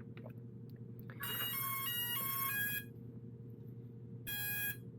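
Hubsan Zino Mini Pro drone powering on: a short melody of electronic startup tones stepping in pitch about a second in, then two more tones near the end, over a steady low hum.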